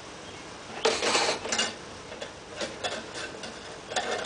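Hand work on a lawn mower's control cable fittings: a short stretch of scraping about a second in, then a few light clicks of small metal parts.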